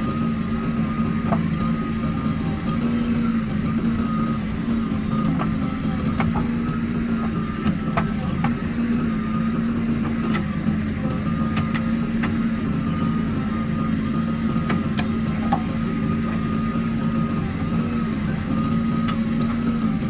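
Diesel engine of a JCB 3DX backhoe loader running steadily under working load, a constant hum with a thin steady whine above it and scattered faint knocks.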